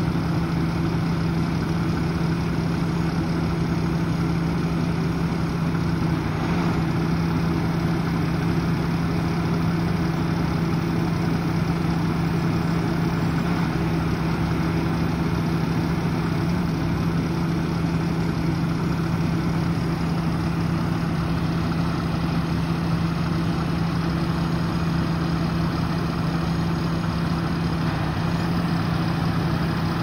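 Heavy diesel truck engine running at a steady idle, an unchanging low drone.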